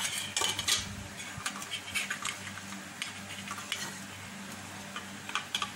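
Metal fork scraping and tapping against a stainless steel bowl while stirring and coating in melted chocolate: a run of short scrapes and clicks, busiest in the first second and again near the end, over a faint steady hum.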